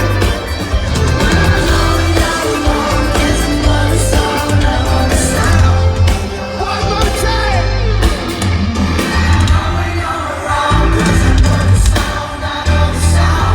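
Live pop-rock band playing loudly with a singing voice over a heavy, pulsing bass, echoing through a large arena.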